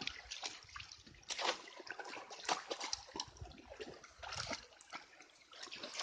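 Mountain stream running over rocks, with irregular knocks and rustles close by.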